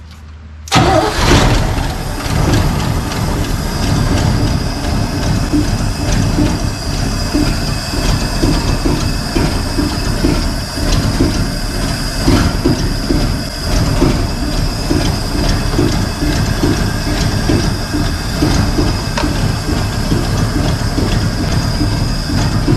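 A 1976 Chevrolet K20's 350 small-block V8 catching about a second in and then idling steadily with an even pulse: its first start in over 20 years.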